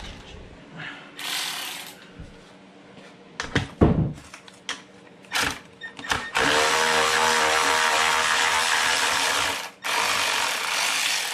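Cordless electric ratchet running steadily to back out a 12 mm muffler mounting bolt, in two runs with a short pause near the end. Before it, metal tools clink and knock as they are handled.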